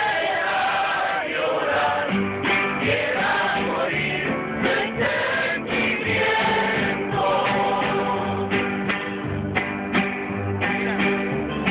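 Mariachi band singing and playing: a group of voices sings at the start, then strummed guitars and violins carry on over steady plucked guitarrón bass notes.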